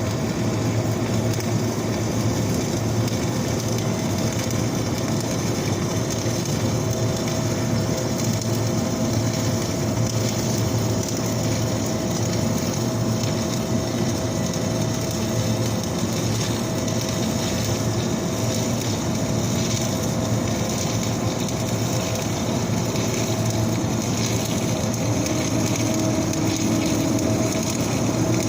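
Flux-core wire-feed arc welding a vertical hot pass across a wide joint gap: the arc's steady, continuous crackle and sizzle, with a steady low hum underneath.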